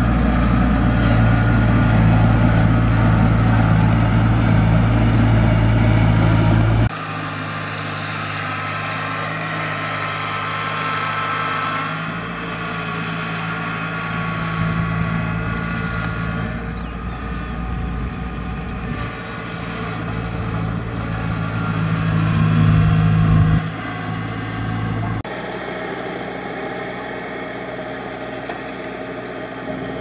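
Small tracked rice combine harvesters, a Kubota DC70 among them, running steadily while cutting rice. The machine sound changes abruptly several times and is loudest and deepest in the first seven seconds.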